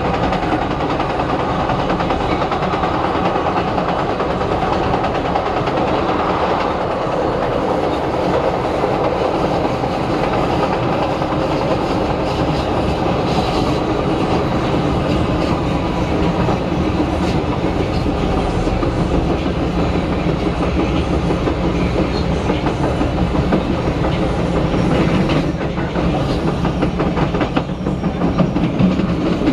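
Ride noise inside a 1992 Morrison-Knudsen 3200-series CTA rapid-transit car running on elevated track: a steady rumble of wheels on rail with clickety-clack from the rail joints and a hum from its General Electric traction motors. The clicking gets sharper near the end.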